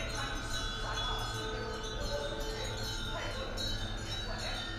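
Small hanging temple bells chiming in the breeze, many ringing tones overlapping and fading at uneven times.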